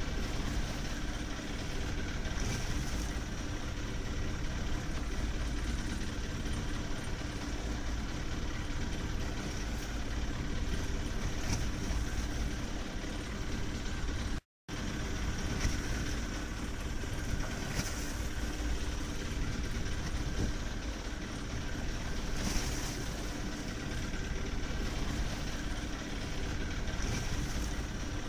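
Fishing boat's engine running steadily at idle, a deep, even drone with water and wind noise over it. The sound cuts out for a split second about halfway through.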